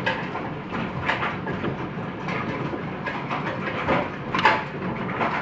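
Large hailstones and heavy rain pelting the ground, wooden boards and grass: a dense, irregular clatter of many hits, with a louder hit about four seconds in.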